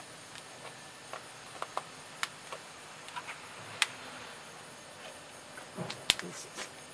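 Scattered light clicks and knocks over faint background noise, with a sharper click about four seconds in and another about six seconds in.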